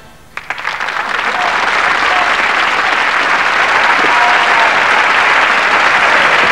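Studio audience applauding at the end of a dance number, breaking out about half a second in and holding steady.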